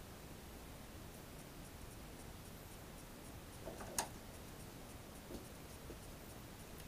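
Quiet workshop room tone with faint handling sounds from rummaging for a set screw, and one sharp click about four seconds in.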